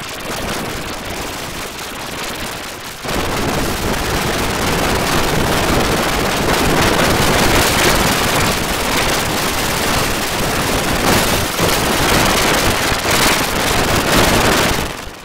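Harsh, loud static-like noise, a crackling hiss spread across all pitches with no tune audible, from an audio distortion effect. It jumps louder about three seconds in and fades out near the end.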